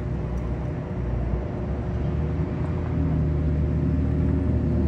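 A motor vehicle engine running nearby: a low, steady rumbling hum that grows somewhat louder and shifts in pitch about halfway through.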